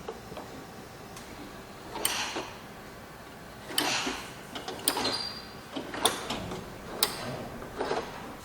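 Irregular mechanical clicks and clacks as the metal hook and limit switches of a homemade fishing-line fire detector are handled, the sharper knocks coming from about two seconds in.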